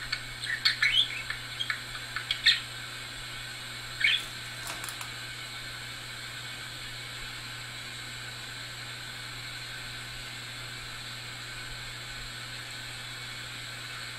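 Budgerigar giving short, high chirps and squawks during the first few seconds, then falling quiet, leaving only a steady low hum.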